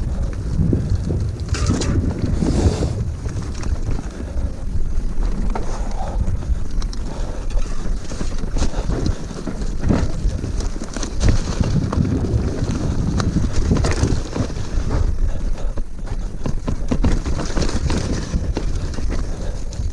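Wind buffeting an action camera's microphone on a mountain bike riding a dirt trail, a heavy fluctuating rumble with frequent short knocks and rattles from the bike over rough ground.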